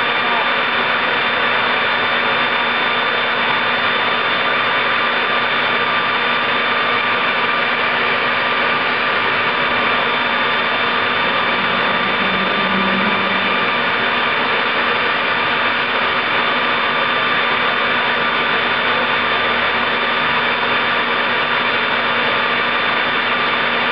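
Home-built turbojet made from a Caterpillar turbocharger, running steadily: a loud, even rush of air with a high compressor whine made of several steady tones.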